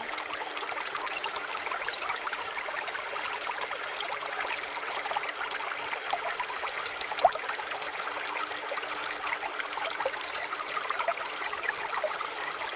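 Running water trickling and burbling steadily, like a small stream, with one brief louder plop about seven seconds in.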